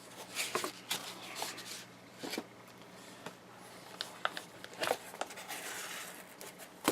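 Cardboard box and packaging being handled as a graphics card is unpacked: scattered rustles and light clicks and taps, over a faint steady hum.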